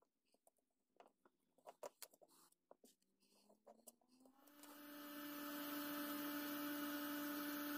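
Faint light taps and rustles of masking tape being pressed around a hammer head. About four and a half seconds in, a steady electrical hum starts and holds.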